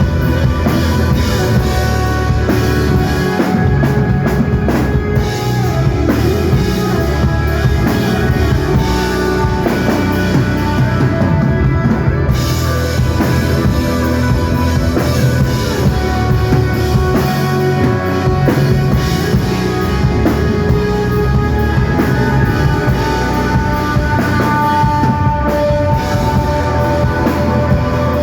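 Live rock band playing loudly and without a break: electric guitar over bass and a steady drum beat.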